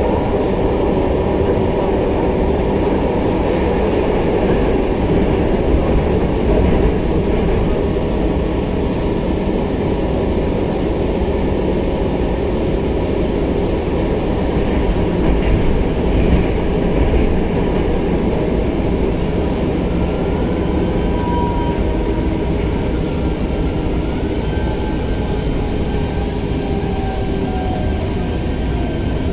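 Steady running rumble of an elevated commuter train, heard from inside the carriage. A faint whine joins it in the second half.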